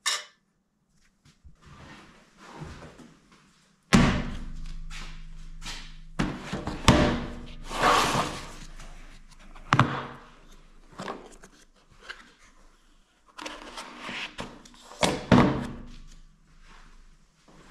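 A hard plastic carrying case is handled on a steel welding table and opened: a run of knocks and clunks with rustling handling noise between them, the loudest coming about four seconds in and at intervals after.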